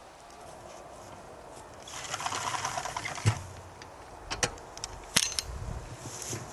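Loose dry hay rustling as it is handled in a hand hay baler built from a metal filing cabinet, followed by three sharp knocks and clanks from the baler.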